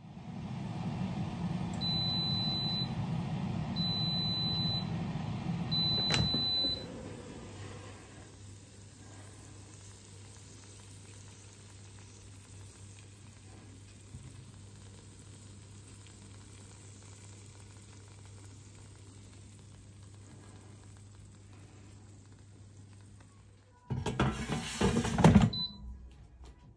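Gourmia digital air fryer running, beeping three times about two seconds apart: its mid-cook 'turn food' reminder. A sharp click comes about six seconds in and the loud running noise drops to a faint low hum. Near the end a loud clatter comes from the air fryer basket being handled.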